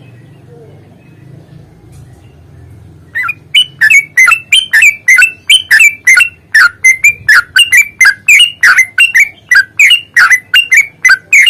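Yellow-vented bulbul giving a long, fast run of loud, sharp chattering notes, about three or four a second, starting about three seconds in: the excited, fighting-mood call used to provoke other bulbuls into singing.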